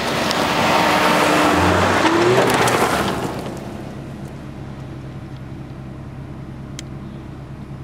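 Off-road 4x4 engines on a dirt track: for the first few seconds engine noise under a loud rushing sound, with a brief rise in engine pitch about two seconds in. About three seconds in it drops to a quieter, steady engine drone heard from inside a vehicle's cabin.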